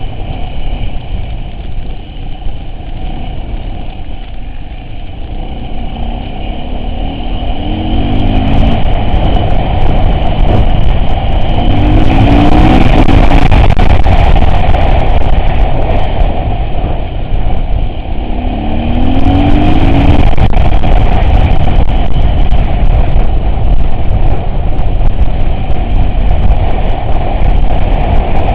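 Off-road vehicle's engine running under load while driving, growing louder about eight seconds in, with short rising revs three times.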